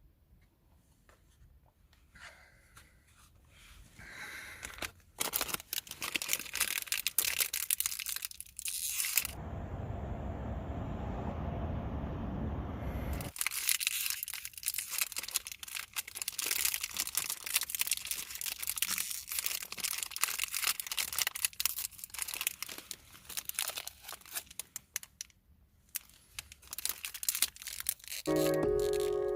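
Plastic wrapper crinkling and tearing in dense crackly stretches. About nine seconds in, a steady rushing noise lasts roughly four seconds.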